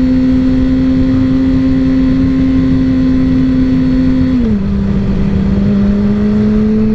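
Yamaha R6's inline-four engine running at a steady, fairly high pitch under way, with wind rumble. About four and a half seconds in the note drops as it shifts up a gear, then climbs slowly as the bike pulls again.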